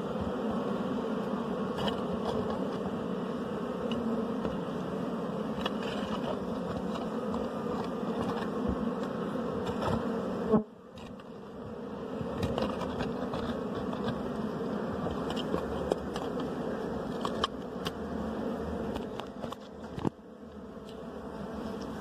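Swarm of bees buzzing steadily close to the microphone around their wild nest as its honey is taken by hand. There is a sharp knock about ten and a half seconds in, after which the buzzing is quieter for a moment.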